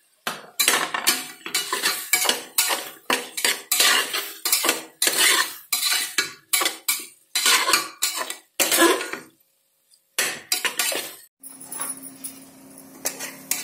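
Metal spatula scraping and clinking against the inside of an aluminium pressure cooker, stirring tomatoes into fried onions and spices, in a rapid run of knocks and scrapes that pauses briefly near ten seconds. Near the end the clatter stops and a steady low hum with a faint hiss remains.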